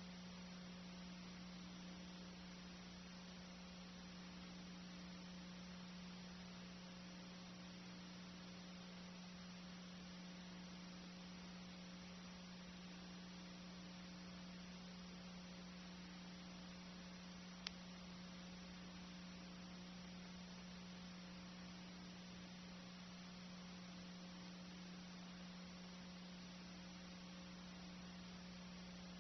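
Faint steady electrical hum over an even hiss, with no sound of the game itself; a fainter tone pulses on and off every second or so, and a single sharp click comes about eighteen seconds in.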